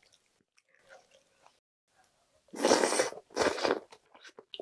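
Close-miked eating sounds over a spoonful of budae-jjigae stew: faint chewing, then two loud, breathy half-second bursts of air through pursed lips at the spoon, a little under a second apart.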